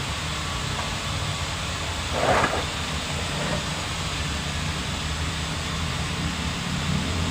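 Steady mechanical rumble and hiss, like traffic or machinery running, with a brief louder swell about two seconds in.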